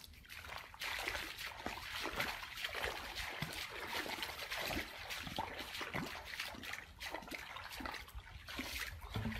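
Water splashing and trickling, starting about a second in and going on in a busy, uneven stream of small splashes.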